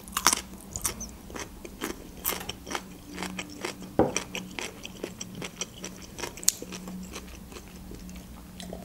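Close-miked chewing of a fresh cucumber slice: crisp crunches and wet mouth clicks, thick at first and thinning out, over a faint steady hum.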